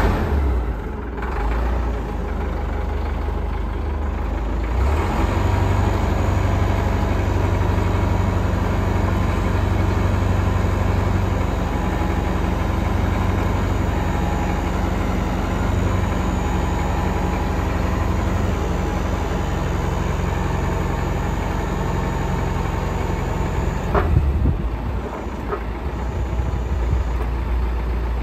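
Caterpillar 944 wheel loader's diesel engine running steadily. Its note rises and strengthens about five seconds in while the hydraulic loader arms lift the pallet forks. A sharp click comes about 24 seconds in, after which the engine runs a little quieter.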